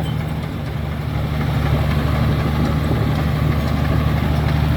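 Six-cylinder turbocharged diesel engine of a Komatsu D83E bulldozer running steadily at a low, even speed, getting a little louder about a second and a half in.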